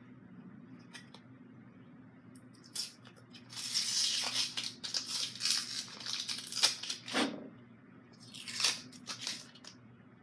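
Hands working the pieces of a kid's wooden coin bank kit: a long run of scratchy, tearing-like handling noise begins about three and a half seconds in, and a shorter one comes near the end, with a few sharp clicks.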